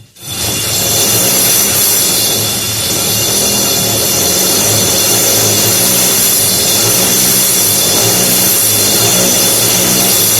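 Electric drill boring through a brick wall, running steadily under load with a dense grinding noise and a low hum.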